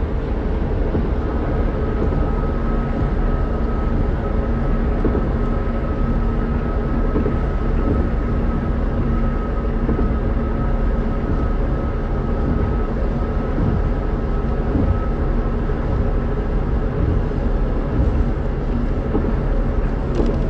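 Steady car road and engine noise heard from inside the cabin while driving, a dense low rumble with a faint steady whine over it.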